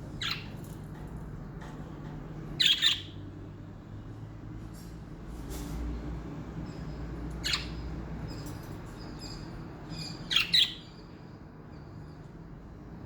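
Pet budgerigars calling: short, sharp chirps that drop in pitch, about six in all, some in quick pairs a few seconds apart, with faint soft chatter between them.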